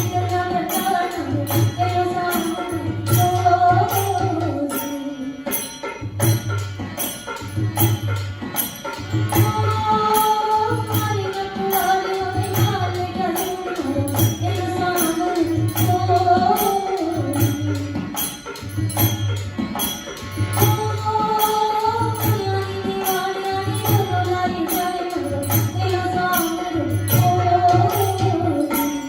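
Rajasthani folk music: a wavering melodic line over a steady low drum beat about once a second, with sharp high percussion clicks several times a second.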